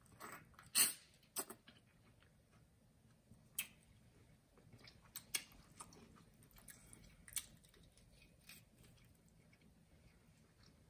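Close-miked eating of lobster in seafood-boil sauce: wet sucking and chewing, with scattered sharp clicks and crackles as the shell is picked apart by hand. The loudest click comes about a second in.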